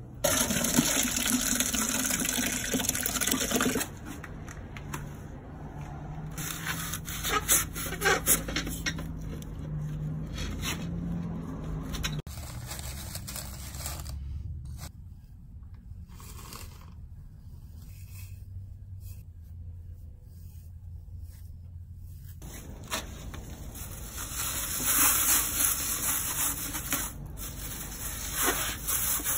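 Thick wet mix sloshing and scraping out of a plastic bucket into a galvanized steel bucket, loudest for the first four seconds, then softer scraping. Later, rubbing and scraping as steel wool is packed by hand around a plastic bucket inside the metal one.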